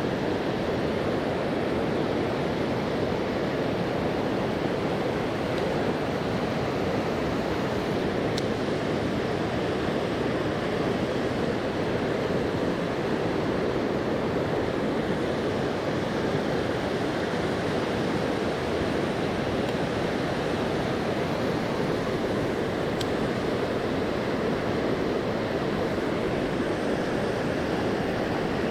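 Steady, even rush of flowing river water, with two faint ticks.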